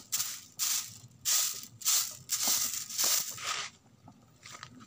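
Stiff stick broom brushing dirt and rust off an old rusty pedal rice thresher, in about seven rhythmic scratchy strokes roughly two every second, stopping a little over halfway through.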